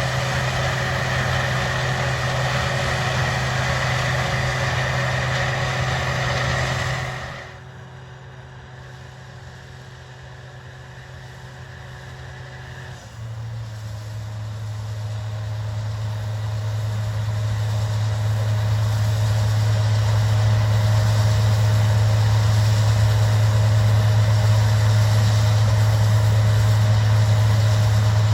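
Engine of harvest machinery running steadily with an even hum. It drops away suddenly after about seven seconds. A slightly different steady engine hum comes in about halfway through and builds louder toward the end.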